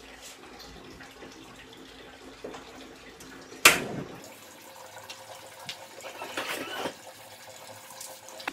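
Gas stove burner lit: one sudden loud whoomp of igniting gas a little over three and a half seconds in, dying away within about half a second. A shorter, softer noisy sound follows a few seconds later, and there is a brief click near the end.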